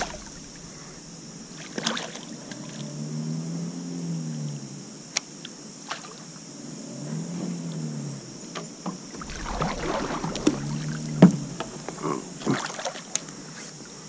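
River2Sea Whopper Plopper topwater lure being reeled back across the water on a baitcaster. A low whirring rises and falls in pitch three times as the retrieve speeds up and slows, with a few light splashes and clicks.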